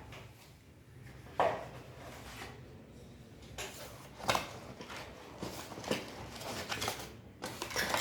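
A tablet's box and packaging being handled: a sharp knock about a second and a half in, then rustling and small clatters as the accessories are taken out.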